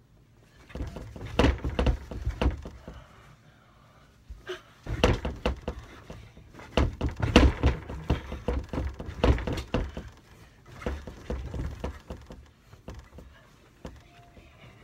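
Repeated thuds and rustling of a child jumping and flopping onto a bed and pillows, coming in bursts with short pauses.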